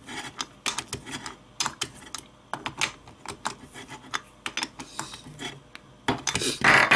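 Plastic cross wrench clicking and rattling against a small lock nut and plastic wheel hub as the nut is turned onto a model car's front axle, in irregular bursts of light clicks. A louder scraping rattle comes about six seconds in.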